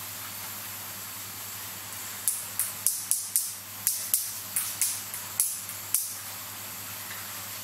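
Fine steel watchmaker's tweezers clicking against the small metal parts of a Seiko 7S26B automatic movement during assembly. About a dozen sharp, light, irregularly spaced ticks start about two seconds in and stop about two seconds before the end, over a steady hiss and hum of room noise.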